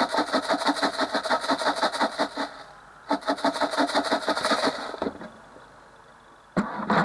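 Sliced red chilies and their seeds rattling inside a plastic basin covered with a plate, shaken hard in two runs of about two seconds each to knock the seeds loose from the chili flesh. A short knock follows near the end.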